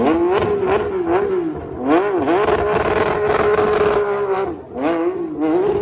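Porsche flat-six engine revved hard. It jumps to a high pitch at once and wavers through quick blips, dipping twice about two seconds in. It then holds steady at high revs for over a second, drops, rises again near the end and falls away.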